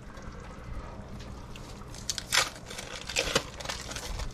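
Clear plastic bag crinkling briefly twice, about two and three seconds in, over a steady low hum.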